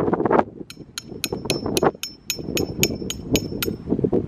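A hammer driving a metal tent stake into hard ground: about a dozen ringing metallic strikes, roughly four a second, that stop shortly before the end. Wind rumbles on the microphone underneath.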